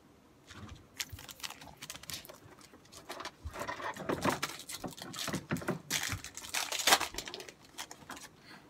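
Trading-card pack wrapper crinkling and tearing as a pack is ripped open, with the cards rustling in hand; irregular crackles, starting about a second in.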